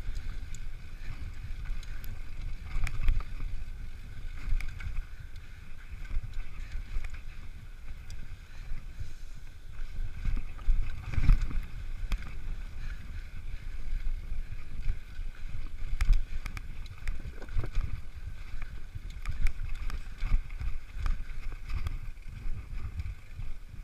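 Mountain bike descending a rocky dirt trail: a steady low rumble and hiss from tyres and rushing air on the helmet or chest camera, with sharp knocks and rattles as the bike hits bumps, the hardest about eleven seconds in and again around sixteen seconds.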